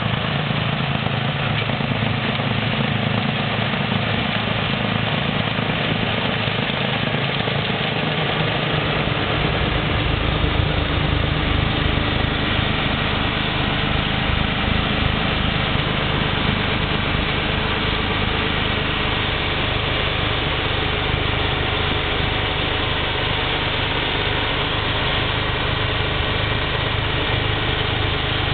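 John Deere 4450 tractor's six-cylinder turbo diesel running steadily, driving a snowblower. A deeper low rumble comes in about nine seconds in and holds.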